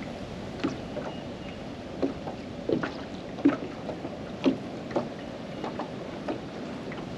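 Small wind-driven waves lapping and slapping against the boat's hull, with a slap every second or less over a steady wash of wind and water.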